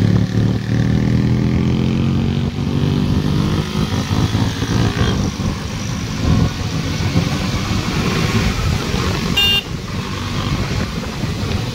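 KTM Duke 200's single-cylinder engine running under way, its note rising gently over the first few seconds, with wind buffeting the microphone. A short vehicle horn toot comes about nine and a half seconds in.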